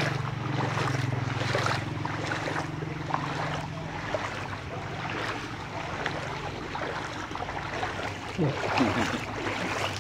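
Floodwater splashing and sloshing as people wade through it on foot, with a steady low hum during the first few seconds that then fades away.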